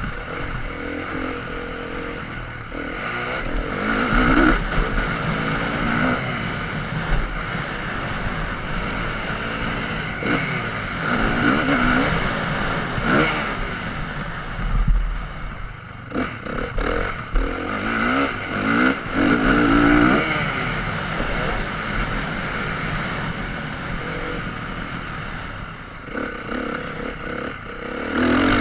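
Motocross bike engine revving hard and backing off again and again as it is ridden over a dirt track, its pitch climbing and falling with each burst of throttle.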